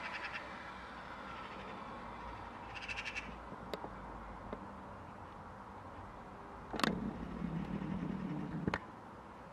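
Eurasian magpies giving short, rapid chattering rattle calls, twice: once at the start and again about three seconds in. Near the end comes a sharp click, then a low hum for about two seconds, ending with another click.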